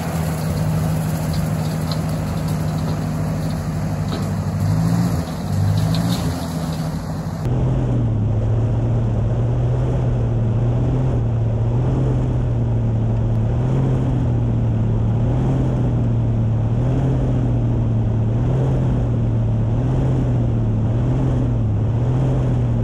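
1957 Ford Workmaster 641 tractor's four-cylinder gasoline engine running under load with a rotary cutter (brush hog) on the PTO. From about seven seconds in it is heard close up, its pitch rising and falling every second or so as the governor hunts: the engine surging under load, which the owner suspects is a carburetor problem.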